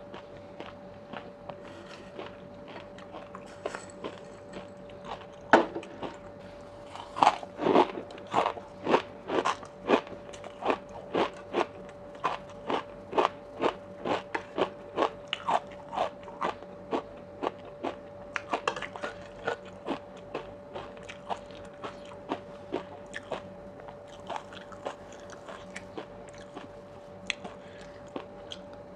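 A person chewing crunchy food close to a clip-on microphone: crisp crunches about two a second, loudest through the first half and growing fainter toward the end. The mouthful is spicy oyster salad topped with crispy fried shallots.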